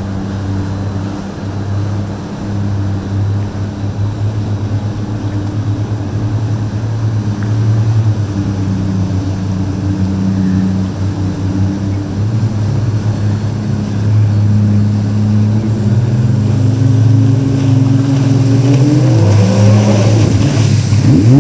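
Motorboat engine running with a steady low drone, then revving up with a rising pitch near the end.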